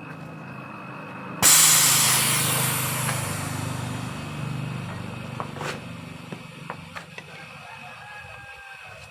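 Pressurised gas suddenly released through a chest freezer's refrigerant line about a second and a half in, a loud hiss that fades slowly over several seconds, with a low hum underneath and a few small clicks near the end: the evaporator being blown through to purge oil out of it.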